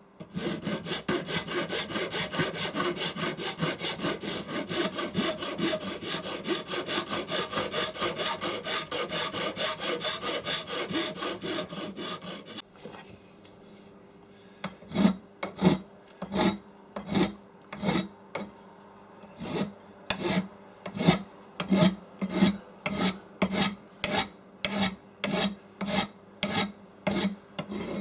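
Hand file rasping back and forth over a cast aluminium piece: quick, even strokes at first, then after a short pause slower, separate strokes about one and a half a second.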